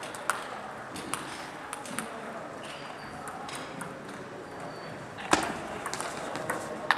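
Table tennis ball clicking off bats and table: a few scattered ball bounces, then about five seconds in a sharp, loud hit followed by a quick run of clicks as a rally starts.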